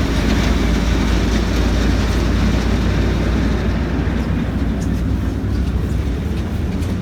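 Steady rush of wind on the microphone mixed with the low rumble of a tour boat's engines, heard from the open top deck. The higher hiss eases off about halfway through, while the low rumble goes on.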